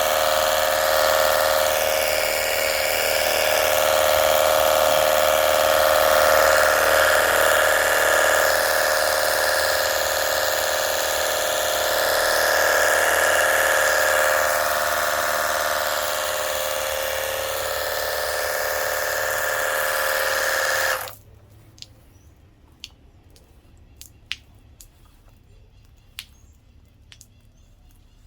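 Cordless battery-powered portable pressure washer running and spraying water: its small electric pump whines steadily under the hiss of the water jet. It cuts off suddenly about 21 seconds in.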